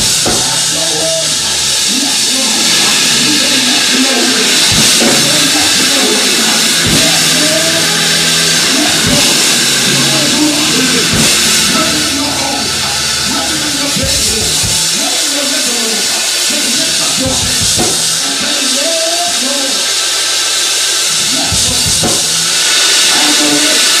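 Live gospel worship music: a man singing into a handheld microphone over a drum kit and held bass notes, with a strong steady hiss over the mix.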